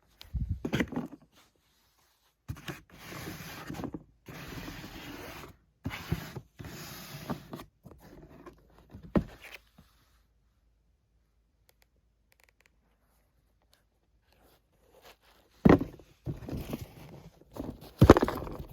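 Sneaker unboxing handling noise: a shoebox and its paper wrapping rustling and scraping in bursts for the first several seconds. Two sharp knocks come near the end, as something is set down or handled.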